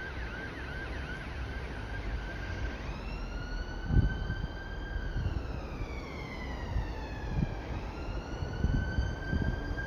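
Emergency vehicle siren: a fast yelp that switches about three seconds in to a slow rising-and-falling wail. A low thump about four seconds in is the loudest moment.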